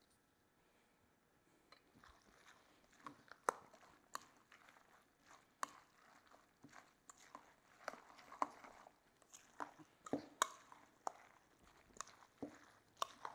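A metal spoon stirring orzo salad in a stainless steel mixing bowl: soft, wet tossing with irregular clinks and knocks of the spoon against the bowl, starting about two seconds in.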